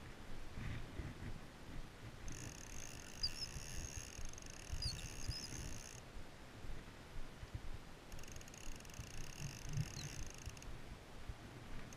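Spinning reel being wound in: a steady mechanical whir in two stretches of a few seconds each, over a low rumble, with a few faint chirps.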